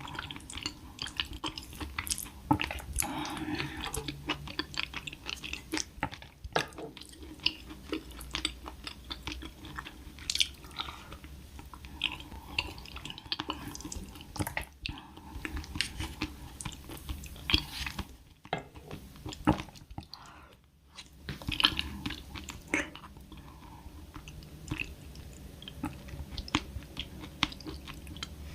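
A person chewing and eating food close to the microphone: a steady run of small mouth clicks and smacks, pausing briefly twice in the second half.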